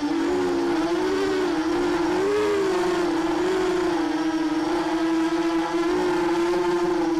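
Mini quadcopter's brushless motors and propellers (Sunnysky 2207 2100kv on 4S) whining in flight, heard from the onboard camera. The pitch wavers up and down with the throttle over the first few seconds, then holds nearly steady.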